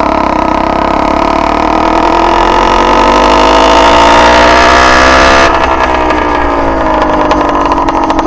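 Two-stroke motorized-bicycle engine under way, its pitch climbing steadily for about five seconds as it pulls. Then the throttle closes and the note falls away as it slows. The engine is on rich break-in jetting that makes it sound choppy and break up at the top end.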